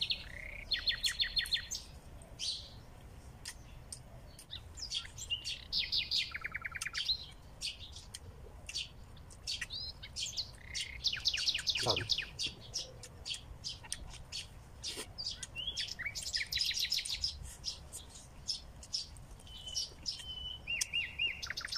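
Several small birds chirping and singing in the surrounding trees, with quick repeated trills now and then. Scattered faint clicks are heard among them.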